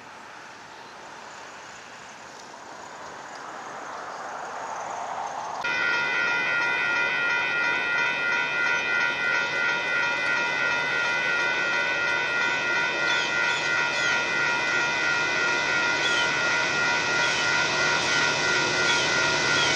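Railroad grade-crossing warning bell ringing steadily, about two strokes a second, starting suddenly about five and a half seconds in. Beneath it the rumble of the approaching BNSF coal train grows louder, after a rising rushing noise at the start.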